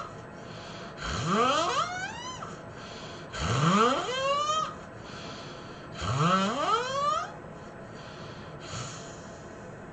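A person snoring: three long snores about two and a half seconds apart, each sweeping sharply upward in pitch, then a much fainter one near the end.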